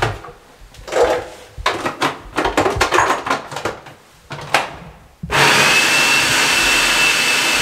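Clicks and knocks as an electric food processor is set up and plugged in, then about five seconds in its motor starts and runs steadily with a high whine, chopping green chillies, onion, capsicum and carrot.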